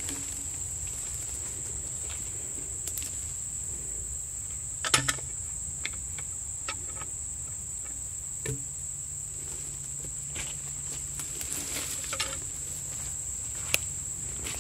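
Steady high insect drone throughout, with scattered knocks and rustles as a steel cant hook grips and shifts a log in the brush; the loudest knock comes about five seconds in, with others about halfway and near the end.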